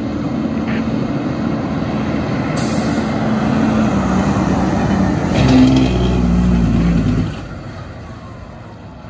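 Fire engine driving past on an emergency response, its diesel engine growing louder as it approaches and loudest about six seconds in, then dropping away sharply as it passes.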